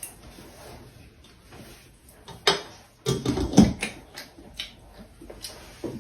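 Scattered knocks and clicks of tableware, chopsticks, bowls and spoon, being handled during a meal, loudest in a cluster about three seconds in.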